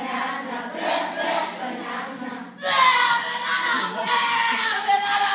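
A crowd of children calling out together in short bursts, then, about two and a half seconds in, breaking into a loud, sustained group shout.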